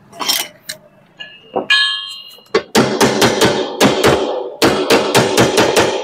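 A hammer tapping rapidly on a washing machine's steel gearbox mounting plate, about five blows a second, to drive the plate and its new bearing down into place on the gearbox. A short metallic ring comes just before the hammering starts.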